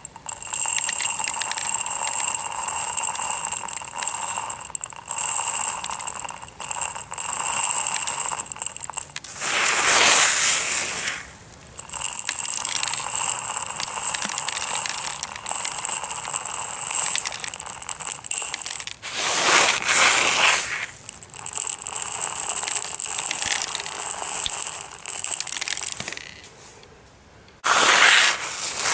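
Tiny aquarium gravel rattling and scraping as it is handled, a continuous gritty clatter. Three brief louder surges come about a third of the way in, two thirds in, and near the end.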